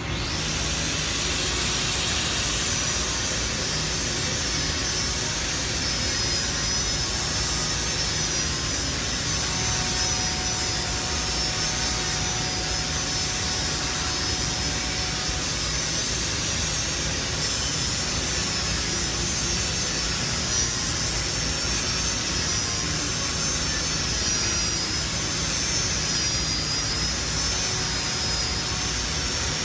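Angle grinder spinning up and then grinding down a steel weld, a steady harsh rush with a high whine that wavers in pitch as the disc is worked against the metal.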